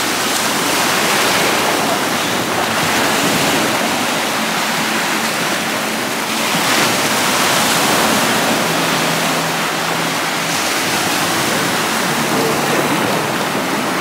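Ocean surf breaking and washing up a sandy shore, a loud, steady rush of waves.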